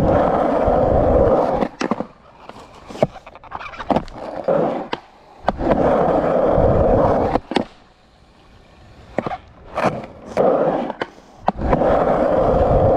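Skateboard wheels rolling over a skatepark surface in three long stretches, with sharp clacks and knocks of the board in the gaps between them.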